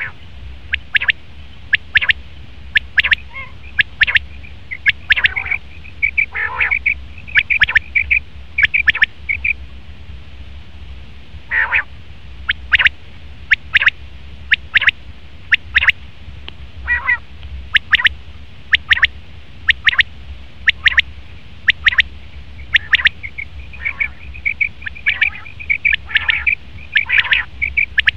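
Male common quail calling over and over: short, sharp notes repeated in quick groups, with some rougher, trilling call stretches between them. A steady low hum runs underneath.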